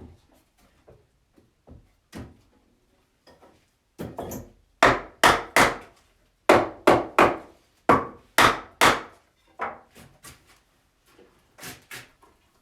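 Wooden pole lathe being worked with the foot treadle: a string of sharp wooden knocks and rasps, about two or three a second, loudest through the middle, as the workpiece spins back and forth on its mandrel.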